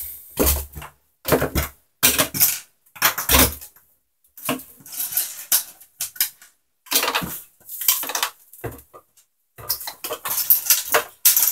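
Small hard-plastic aquarium filter parts and hoses clattering and knocking on a wooden desk as they are gathered into a cardboard box, with plastic bags rustling in between.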